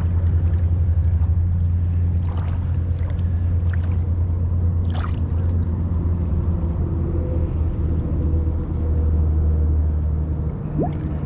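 Steady low drone of a motor running throughout, with a short rising squeak near the end.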